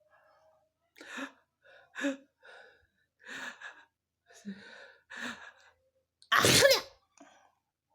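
A person working up to a sneeze: a string of short, breathy gasps, some half-voiced, over several seconds, then one loud sneeze near the end. It is a sneeze brought on on purpose.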